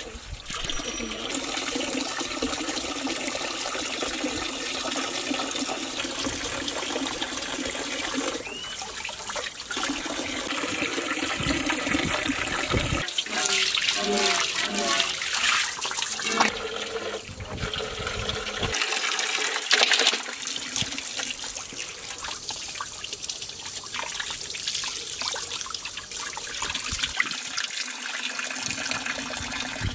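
Tap water running and splashing into an aluminium basin while plucked quail are rinsed under it by hand. The splashing changes abruptly a few times.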